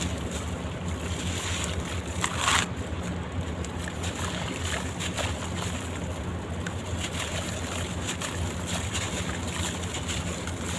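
Soaked sand-cement and charcoal chunks being crumbled in water: a steady watery sloshing with scattered small crackles and one louder crunch about two and a half seconds in.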